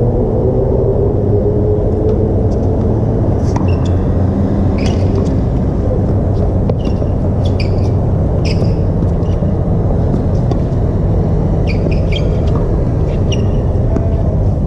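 Tennis rally: a string of sharp racket-on-ball strikes and ball bounces, roughly one every second, over a loud steady low rumble with a hum in it.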